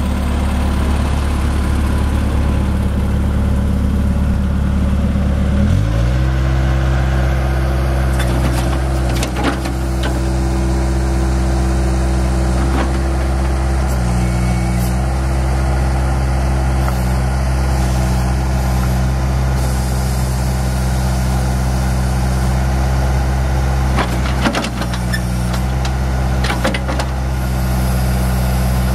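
Skid steer loader's diesel engine running, throttled up about six seconds in to a higher steady speed. A few sharp knocks sound over it.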